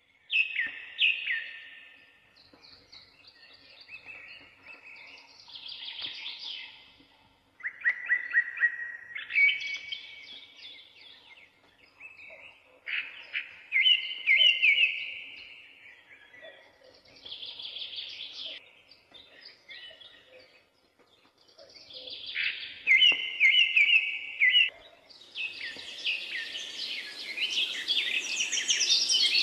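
Songbirds singing in repeated chirping phrases a second or two long, with short pauses between them. Near the end a steady hiss builds up beneath the song.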